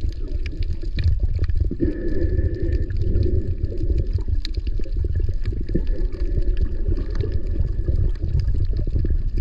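Sound of water heard through a camera held just below the surface: a steady low rumble of moving water, with scattered clicks and crackles throughout.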